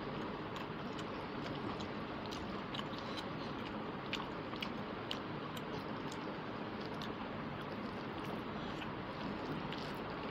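Eating rice and curry by hand close to a lapel microphone: chewing, and fingers mixing rice on the plate, heard as scattered small wet clicks over a steady background hiss.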